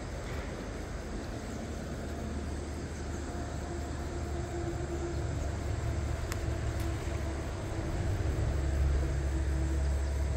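Steady low outdoor rumble, with a faint steady hum joining about three and a half seconds in. The rumble grows louder near the end.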